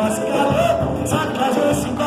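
Live music: a singing voice carrying a melody over a band with drums keeping a steady beat.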